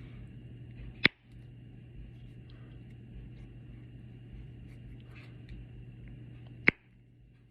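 Two sharp snaps from a snapper fidget toy, about a second in and again near the end, over a steady low hum.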